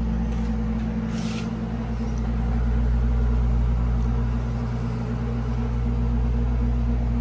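Steady low hum of a running motor or appliance, with a brief rustle about a second in.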